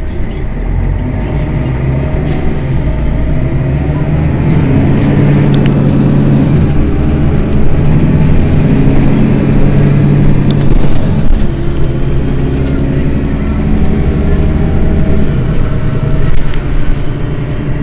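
Engine of a Mercedes-Benz Citaro city bus running while the bus stands still. It grows louder over the first few seconds, then holds with its note rising and falling slightly.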